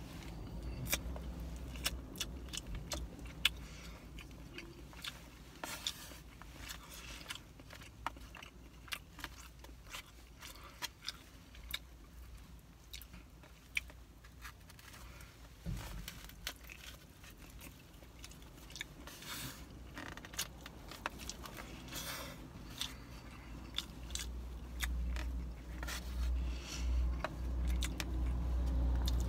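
Chewing, with a plastic fork clicking and scraping against a foam takeout box in many small sharp clicks. A low rumble swells near the end.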